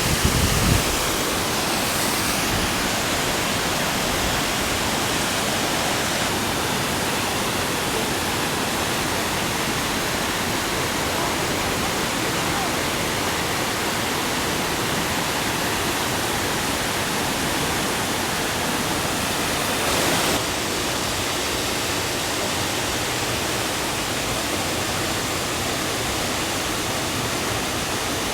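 Steady rushing roar of the Düden waterfall, water pouring down without a break. A brief low rumble sounds at the very start.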